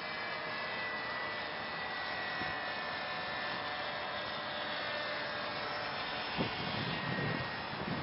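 Radio-controlled model Cessna airplane flying overhead, its motor a steady whine that drifts slightly lower in pitch. There is a brief knock about six and a half seconds in.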